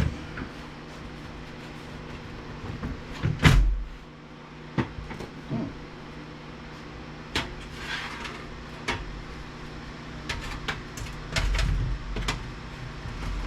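Scattered knocks and clanks of a sheet-metal cover being worked loose on a scrapped VCR/DVD combo unit, the loudest about three and a half seconds in and several more near the end, over a steady low hum.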